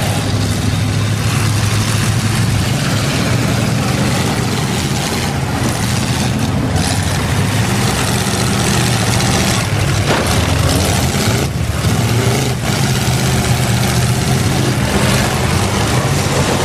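Several demolition derby cars' engines running and revving together, loud and continuous.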